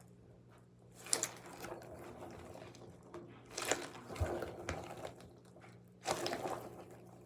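A homemade squishy being squeezed and pressed, giving soft crinkly squishing noises in three main bursts, the longest near the end, over a faint steady hum.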